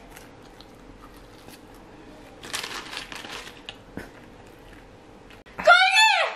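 Soft paper rustling from a fries carton, with a single light click about four seconds in. Near the end comes a loud, high-pitched vocal cry whose pitch rises and then falls.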